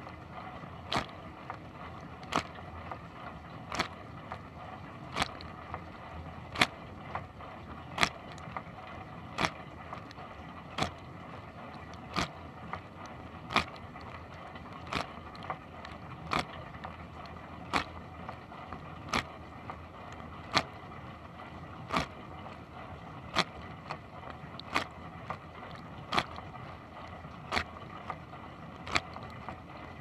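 Dishwasher wash cycle heard from inside the tub: a steady rush of spraying water, with a sharp splash about every one and a half seconds.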